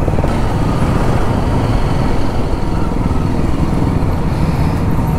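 Motorcycle running, a steady loud rumble with road noise.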